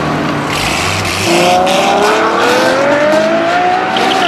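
Sports car engine accelerating hard, its pitch climbing steadily for about three seconds, then dropping at a gear change near the end.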